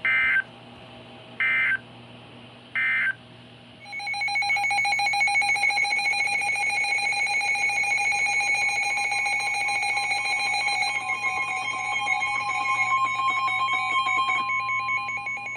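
Three short bursts of Emergency Alert System SAME digital data tones, about a second and a half apart, then the steady EAS attention tone sounding for about eleven seconds. The attention tone announces the next alert.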